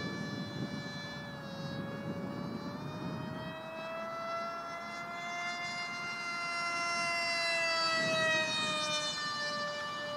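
Radio-controlled Mini Metal F-15K model jet flying overhead, its motor giving a steady high whine with many overtones. The pitch climbs gently through the middle and falls again near the end.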